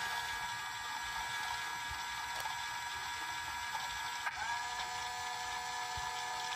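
Gemmy spinning snowman's small gear motor whirring as the figure turns, a steady mechanical whine. About four seconds in it catches and slides back up to pitch. No song plays with it, because the figure's speaker is dead.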